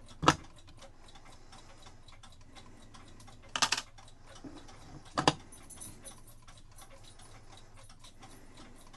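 Antique Swiss cuckoo clock movement ticking steadily, with three louder sharp clicks or knocks: about a third of a second in, near four seconds, and just after five seconds.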